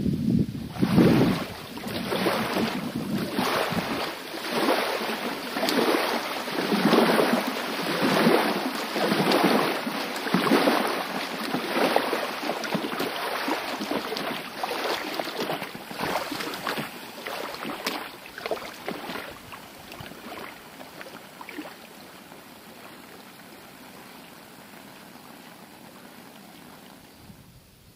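Small waves lapping on a sandy shore, a wash that swells and falls every second or so, dying down to a faint steady hiss over the last several seconds.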